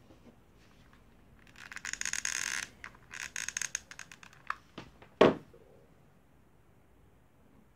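A hot glue gun and a small wooden block being handled: two spells of crackling, scraping noise as glue is fed onto the block, then a few clicks and one sharp knock about five seconds in.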